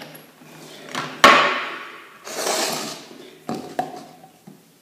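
Hand tools and threaded steel pipe fittings being handled and set down: a knock, then a sharp clank about a second in, a scraping rustle, and two light clicks near the end.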